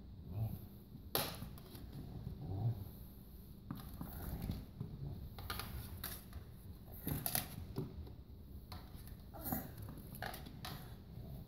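A toddler handling tennis balls and a tennis-ball can: a handful of scattered knocks and rattles, with soft low bumps in between.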